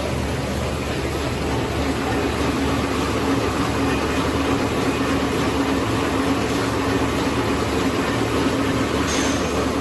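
Facial tissue packing machine running: a steady mechanical hum with a held tone under it, and a brief hiss near the end.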